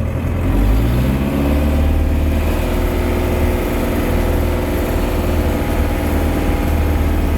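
Case 885XL Super 2 tractor's four-cylinder diesel engine pulling the tractor in reverse: it revs up over the first second or so, holds a steady pitch, then drops back near the end.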